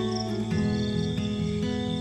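Slow, calm instrumental music with sustained notes, over night insects chirping in short, high, pulsed trills.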